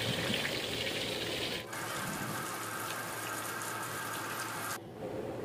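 Whole catfish deep-frying in hot oil in an aluminium wok: a steady sizzle. The sizzle changes abruptly about a second and a half in and loses its high hiss near the end.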